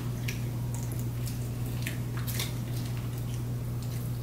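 Eating at a table: forks clicking and scraping on plates and chewing of pasta, in short scattered ticks, over a steady low hum.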